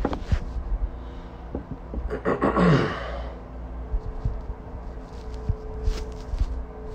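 A person sighing once, a breathy exhale that falls in pitch, about two and a half seconds in. Light clicks and taps follow near the end as a plastic water bottle is handled on the table.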